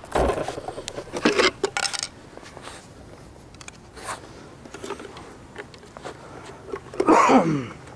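Clattering clicks and knocks of a camera being handled and settled on asphalt, then a short, loud sound gliding downward in pitch about seven seconds in.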